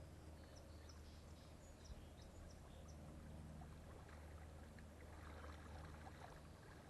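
Near silence: faint outdoor background with a steady low hum and a few faint, short high chirps in the first half.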